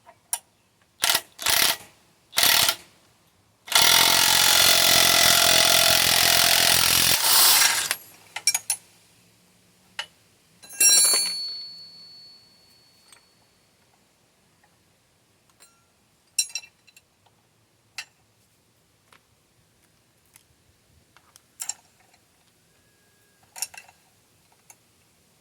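An impact wrench hammering on the bolt of a bushing press tool, pressing out an upper control arm bushing on an HMMWV. It runs in three short bursts in the first few seconds, then in one long run of about three and a half seconds, and in another short burst about eleven seconds in. Scattered light metal clicks and clanks follow.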